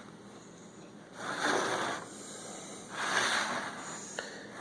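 A person breathing close to the microphone: two soft breaths about a second and a half apart.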